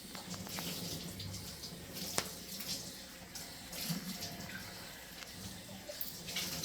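Kitchen faucet running into a sink, with one light click about two seconds in.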